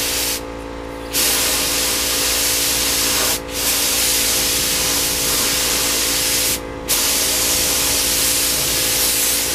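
Gravity-feed paint spray gun spraying clear coat: loud hissing bursts of atomising air, one per pass, each cut off briefly as the trigger is released, about every three seconds. A steady hum runs underneath throughout.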